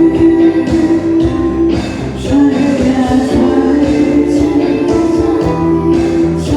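Pop song music with a steady drum beat and held notes.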